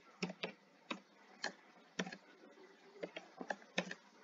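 Computer keyboard typing: about a dozen separate key clicks at an irregular pace.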